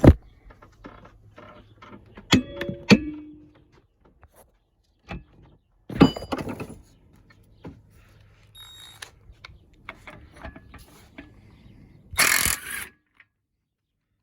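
Metal clanks and clicks of tools being handled, then near the end a loud burst of under a second from a Bauer 1/2-inch impact wrench hammering a 200 ft-lb bolt loose.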